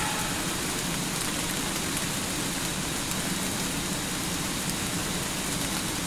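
Steady rushing water noise, even and unbroken, with no distinct strikes or splashes.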